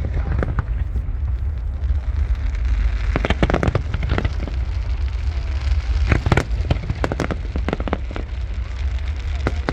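A fireworks display: shells bursting in clusters of sharp bangs and crackles, thickest a few seconds in and again around the middle, over a constant low rumble.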